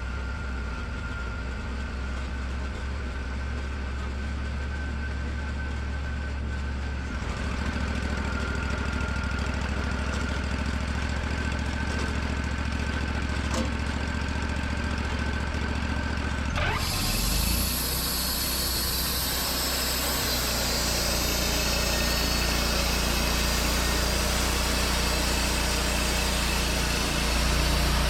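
Wood-Mizer LT40 sawmill running steadily, with a step up in level about seven seconds in. About two-thirds of the way through, a steady high hiss of the band blade sawing joins the engine as a thin strip is cut off a hemlock cant.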